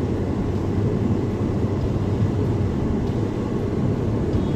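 Steady driving noise of a car, engine hum and road noise, heard from inside the cabin.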